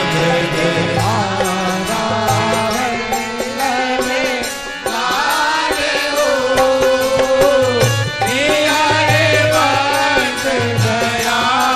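Devotional naam dhuni chant music: a sliding, wavering melodic line over repeated low drum strokes.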